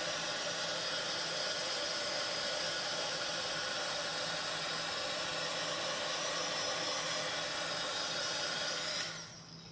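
Electric heat gun running steadily, a fan hiss with a faint whine, blowing hot air to shrink heat-shrink tubing. It is switched off about nine seconds in.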